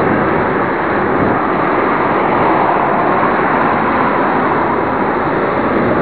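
Loud, steady wind noise on the microphone of a camera carried on a moving push bike.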